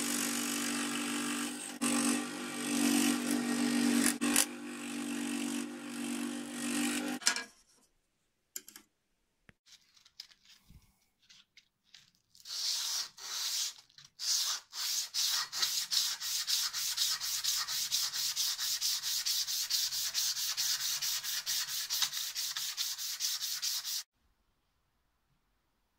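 A scroll saw runs and cuts through a wood and resin handle blank for about the first seven seconds, then stops. About twelve seconds in, hand sanding of the steel cleaver blade begins: sandpaper on a wooden block scraped back and forth in quick, even strokes. The sanding stops suddenly near the end.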